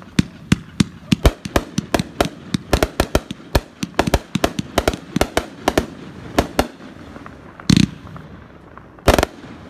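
A 30-shot 500-gram firework cake (The White Party) firing: a rapid string of sharp bangs and pops, several a second, for about seven seconds, then two longer, heavier blasts near the end.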